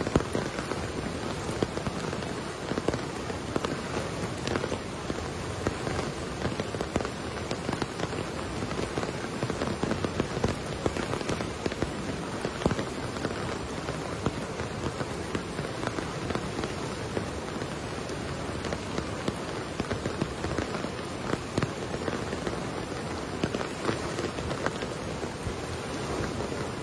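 Heavy rain pouring down on waterlogged ground and standing water, a dense, steady patter of drops with no let-up.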